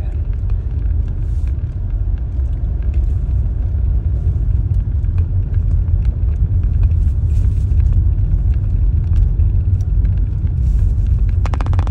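Steady low rumble of a car driving, engine and tyres heard from inside the cabin, with a brief run of rapid clicks near the end.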